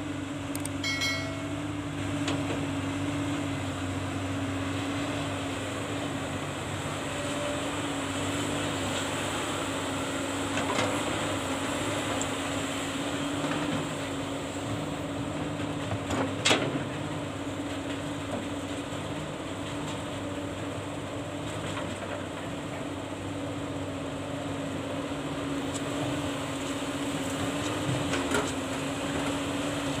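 Komatsu PC200 hydraulic excavator's diesel engine running steadily as the machine digs and loads, a constant drone, with one sharp knock about halfway through.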